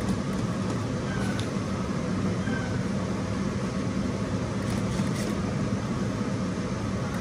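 JACK industrial lockstitch sewing machine running steadily as fabric is stitched, an even mechanical hum.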